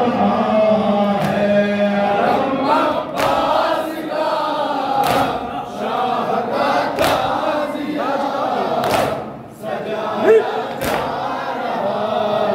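A crowd of mourners chanting a noha together in a loud, steady group chant. Sharp strikes come about every two seconds in time with it, typical of chest-beating matam.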